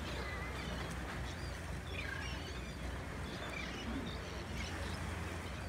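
Shrimp boat's diesel engine running with a steady low drone, with birds chirping several times over it.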